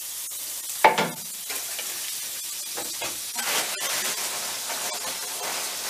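Fat sizzling in hot non-stick frying pans on a gas stove, a steady hiss that flares briefly about three and a half seconds in. A short knock, likely a utensil against the pan or stove, sounds about a second in.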